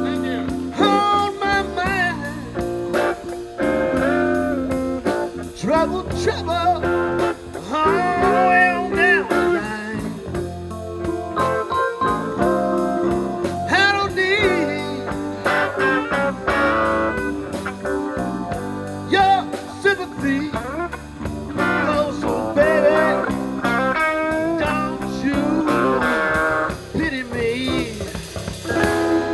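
Blues band playing live: electric guitar carrying a lead line with bent notes over bass guitar and a drum kit keeping a steady cymbal beat, with keyboard.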